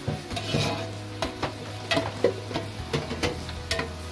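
Metal spoon stirring in a metal pot, clinking against its sides and bottom about two to three times a second. Underneath is the light sizzle of onions and tomatoes frying in ghee.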